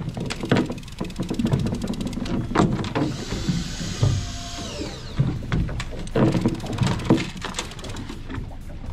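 Irregular knocks and mechanical rattling, with a brief hiss and a falling whine about three to five seconds in.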